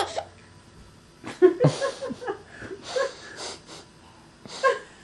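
A baby's short breathy vocal sounds and giggles, in a few separate bursts.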